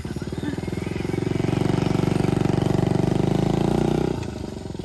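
Small minibike engine running with a fast, even pulse as the bike pulls away, growing louder over the first few seconds, then dropping back sharply about four seconds in.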